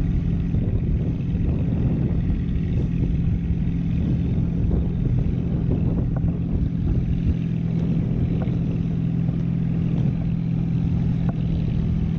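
Steady wind rush buffeting the microphone of a rider towed aloft under a parasail, a rough low rumble with a constant low hum under it.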